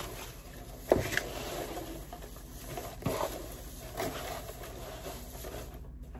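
Hand rummaging through crinkle-cut shredded paper filler in a cardboard box: a steady rustle with a few sharper crackles about one, three and four seconds in.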